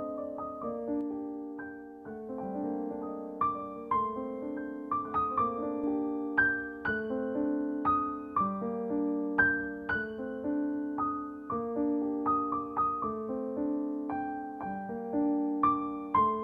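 Background piano music: a melody of single notes struck in quick succession, each fading after it is played.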